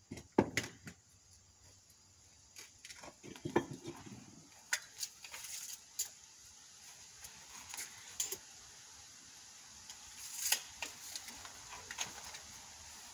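Scattered light clicks, taps and scrapes of hand tools worked against a stone window sill, the sharpest knock about half a second in.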